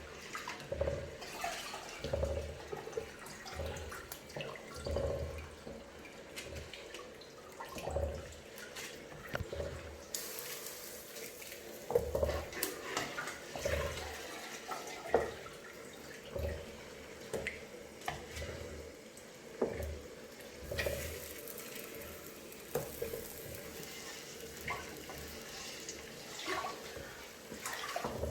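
Water running from a kitchen tap into a sink, with scattered irregular knocks and clinks of kitchenware being handled.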